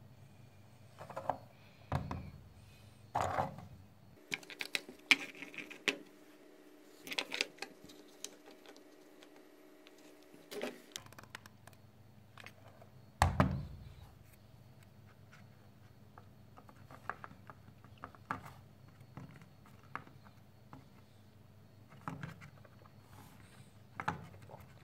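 Wooden ice-cream sticks and a hot glue gun being handled on a tabletop: scattered light clicks and taps, with a louder knock about halfway through.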